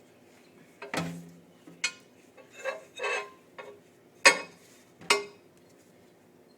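A flat glass plate and dishes being handled on a countertop: a few sharp knocks and clinks of glass set down on a hard surface, about a second apart, with softer rustling of paper towel being unwrapped between them.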